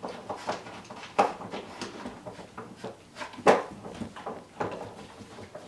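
Puppies nosing and shoving a small metal dish and scrabbling about: irregular clinks and knocks, the loudest about a second in and again about three and a half seconds in.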